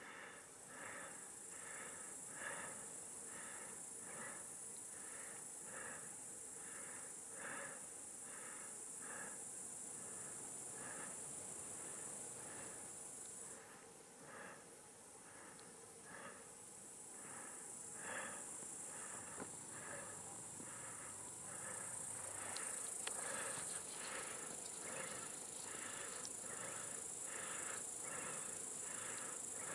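Faint woodland ambience: a steady, high-pitched insect trill that breaks off for a couple of seconds near the middle, with a short chirp repeating about twice a second underneath.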